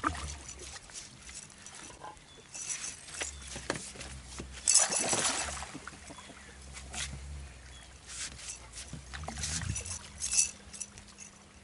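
Hooked redfish thrashing and splashing at the water's surface, with sloshing water between the splashes. The biggest splash comes about five seconds in.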